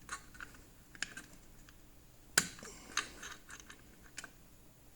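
Scattered sharp metal clicks and taps of a screwdriver working the wheel's locking pin, spreading it so the wheel cannot come off; the loudest click comes about two and a half seconds in.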